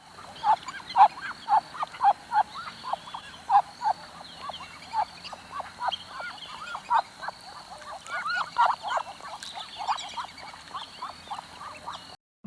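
A group of ducks quacking, many short calls overlapping at about two a second, over a steady faint high-pitched tone.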